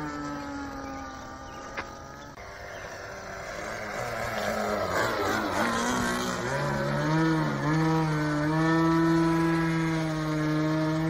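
Glow engine of a radio-controlled Yak-55M aerobatic model plane running in flight, its pitch sliding up and down as the plane passes and manoeuvres in the middle. It settles into a steady high drone for the last few seconds.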